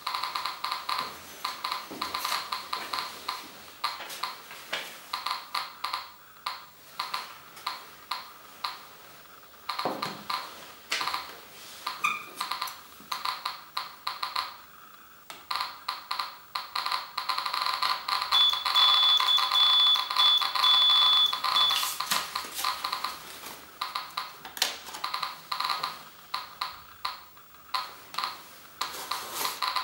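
SV-500 Geiger counter with an SBT-10 pancake tube clicking from its speaker as it counts radiation. The clicks start a few per second, then crowd into a fast crackle while an alpha test source is held against the probe, surging twice. A high steady tone sounds for about three seconds in the middle of the fast counting.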